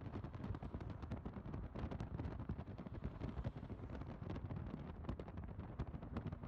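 Wind buffeting a phone's microphone: a low, steady rumble broken by many irregular pops and crackles.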